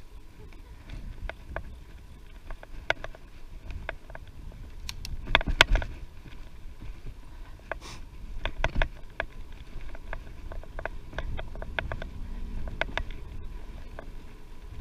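A bicycle being ridden: irregular clicking and rattling knocks over a low rumble of wind and tyre noise, with a burst of louder knocks about five to six seconds in.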